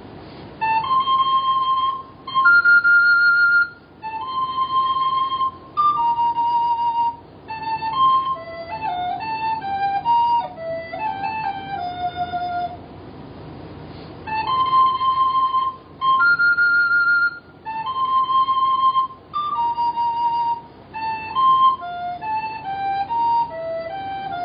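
Yamaha YRS-302BIII plastic soprano recorder playing a Christmas carol melody solo, one clear held note after another, the phrase starting over about halfway through.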